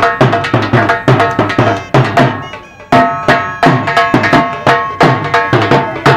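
Rajasthani folk music for a kathputli puppet show: a hand drum beats a fast, even rhythm, several strokes a second, under a steady held melody. It breaks off briefly about two and a half seconds in, then starts again.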